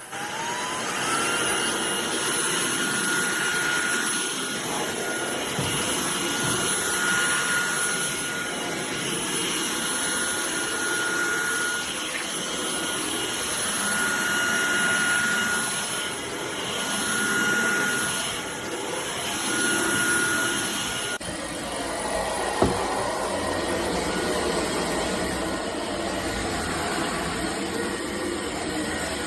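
drepre K7 Pro cordless stick vacuum switching on, its motor whining up to speed within about a second, then running steadily with a high whine over rushing air. About two-thirds of the way through, the whine drops out and the airflow noise changes, with a sharp click shortly after.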